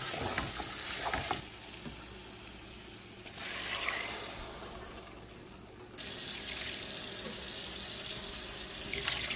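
Shrimp and spice masala sizzling in hot oil in a metal pot as a little water is added and stirred in with a wooden spoon, with a few scrapes of the spoon. The sizzle turns quieter in the middle, then steady again.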